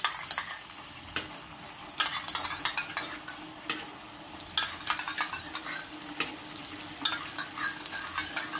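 A metal spatula scraping and clinking irregularly against a wok while stirring a thin broth over the heat, with a steady sizzle underneath.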